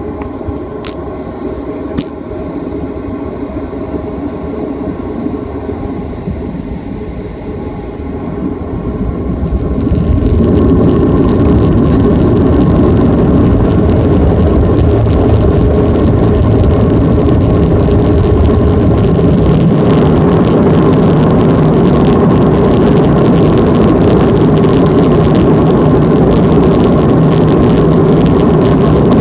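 Jet airliner engines heard from inside the cabin. A moderate hum with a couple of faint clicks near the start, then about ten seconds in the engines spool up to takeoff power and run at a loud, steady roar as the plane rolls down the runway.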